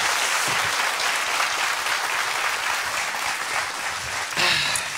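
Studio audience applauding, slowly dying away, with a voice breaking in briefly near the end.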